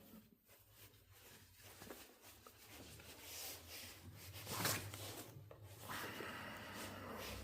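Faint rubbing and handling sounds of hands working a steel balisong while its binding pivots are being oiled, with one short, louder scrape about four and a half seconds in.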